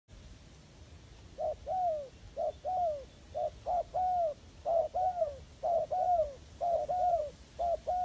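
Spotted dove cooing: a phrase of a short note followed by a longer arching coo, repeated about once a second from about a second and a half in.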